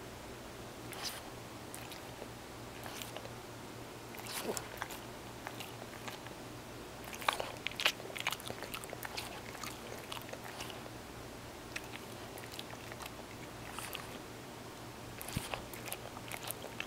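French bulldog licking and smacking its lips, working cream cheese off its muzzle and whiskers: scattered wet clicks and smacks in short bursts, busiest in the middle and again near the end.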